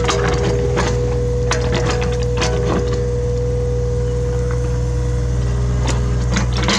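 Hitachi Zaxis 33U mini excavator running steadily with a constant whine, while its bucket digs, giving irregular knocks, cracks and scraping from soil and debris.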